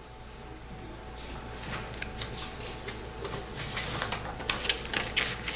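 Rustling and light clicks from things being handled at a lectern close to its microphone, getting busier from about two seconds in.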